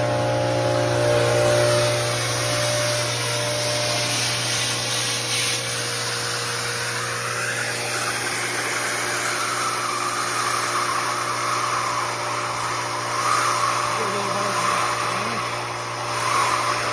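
A 25 hp industrial vacuum runs steadily with a constant low hum and air rushing through its 3-inch hose, as the wand sucks shot blast media out of a bucket.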